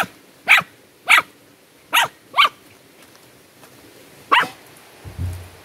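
Dog barking: six short, sharp barks, the first five close together and the last after a pause of about two seconds.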